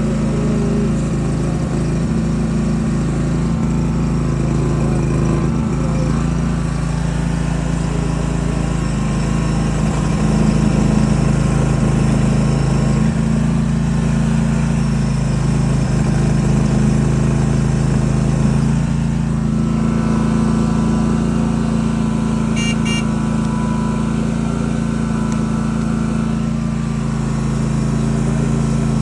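The 23-horsepower engine of an SL380 mini track skid steer loader running steadily, with a slight change in its tone a little past halfway.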